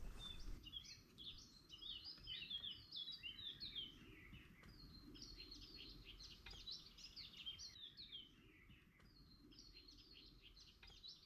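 Birds chirping faintly: a dense run of many short, quick chirps that thins out after about eight seconds, over a low outdoor rumble.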